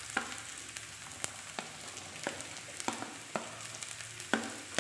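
Chopped vegetables sizzling and frying in a pan while a plastic spatula scrapes them off a plate and stirs them in, with irregular clicks and taps of the spatula against the plate and pan, the loudest near the end.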